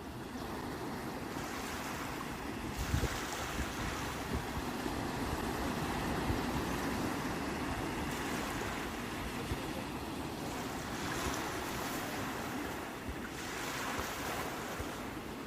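Sea waves breaking and washing on the shore, a continuous rushing that swells and recedes every few seconds, with wind rumbling on the microphone.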